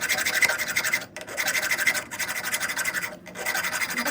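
Harsh scraping in long strokes, with two brief pauses.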